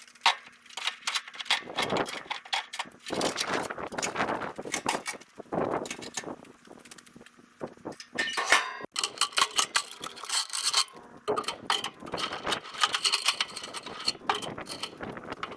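Steel tie-down chains and binders clanking and rattling as they are unhooked from a skid loader on a trailer, in irregular metallic knocks and jingles.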